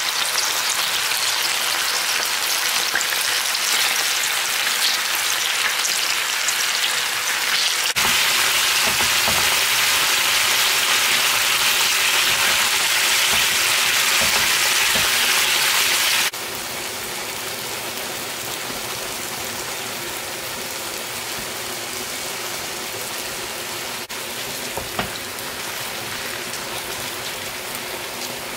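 Chunks of pork sizzling in hot oil in a frying pan: a steady dense hiss that drops suddenly to a quieter level just past halfway.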